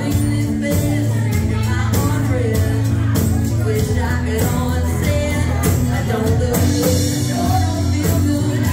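Live country band: a man singing over two acoustic guitars and a drum kit keeping a steady beat.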